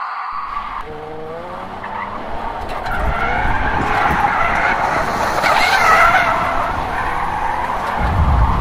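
Nissan 350Z's 3.5-litre V6 revving higher about a second in, then tyres skidding across the pavement as the car drifts sideways, with a heavy low rumble near the end.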